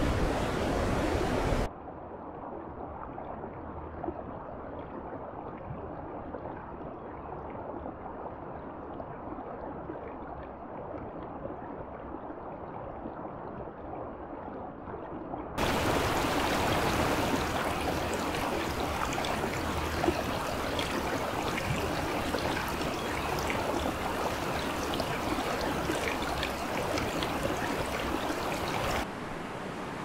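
Steady rushing water, edited in blocks: it turns muffled and quieter about two seconds in, switches abruptly back to a fuller, brighter, louder rush about halfway through, and drops in level again near the end.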